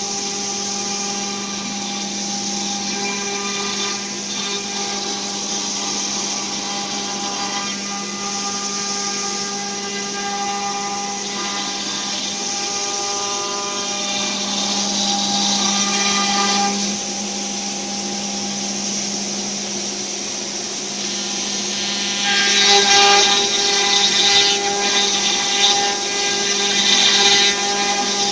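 CNC router spindle running with a steady hum and whine while its small bit cuts a wooden board. The cutting noise grows louder and harsher from a little past the two-thirds mark.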